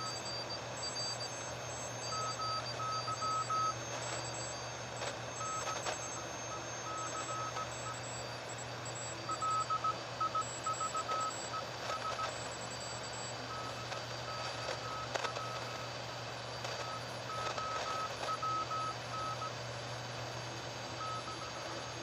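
Morse code (CW) signal received by a PreppComm DMX-40 40-meter transceiver: a single keyed tone of dots and dashes at about 15 words per minute, coming in stretches over steady band hiss, as the radio decodes it to text.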